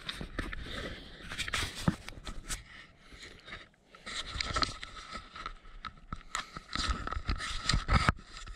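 Irregular scraping, shuffling and clicking of footsteps and handling noise on a concrete patio, with a faint steady high tone in the background.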